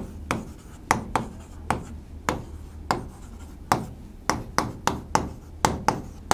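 Pen writing on a board: a run of sharp, irregular taps and short strokes, about two or three a second, over a faint low hum.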